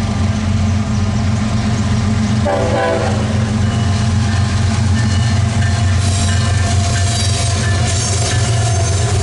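CSX double-stack intermodal freight train passing close by, its diesel locomotives rumbling steadily, with a short horn-like tone about two and a half seconds in. From about six seconds on, rattling wheels and thin high squeals from the stack cars join in.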